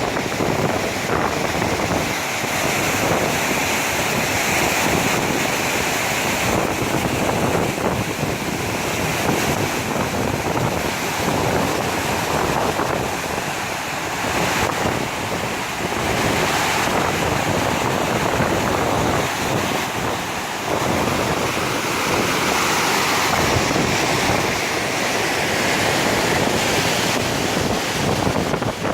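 Saluda River in flood, a loud steady rush of water pouring over and through the dam.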